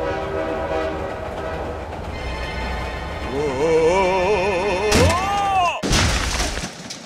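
Train sound effects for a toy train crash: a steady rumble of a running train, then a warbling, several-toned train horn, a sharp hit at about five seconds with a tone that swoops up and down, and a noisy crash burst as the train derails.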